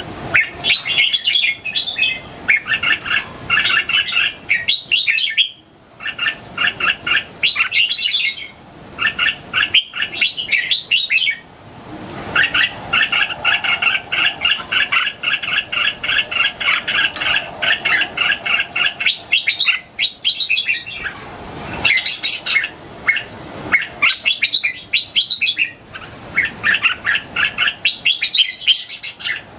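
Young red-whiskered bulbul singing: quick runs of bright chirping notes that go on almost without pause, with a few short breaks.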